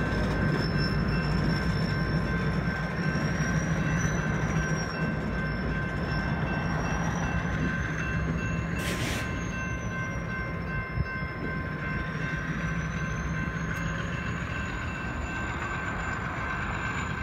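A BNSF diesel locomotive running as it slowly moves a cut of freight cars, with a high, slowly wavering wheel squeal over the engine. There is one brief sharp noise about nine seconds in.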